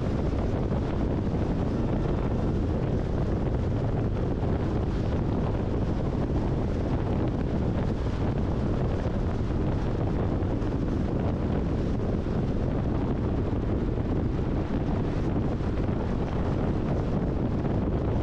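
Steady low rush of wind and road noise from a car travelling at highway speed, unchanging throughout.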